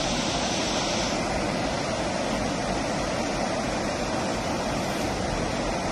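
Steady rush of floodwater pouring over a dam spillway and churning down a swollen river. The high hiss eases a little about a second in.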